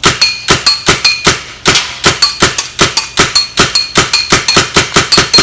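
Tacamo Blizzard SG1 paintball marker firing rapid semi-automatic shots, about five a second, with a brief pause about a second and a half in. Many shots carry a short high ring.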